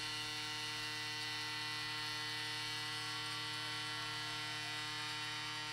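Steady electrical mains hum with a buzzy edge, unchanging in pitch and level.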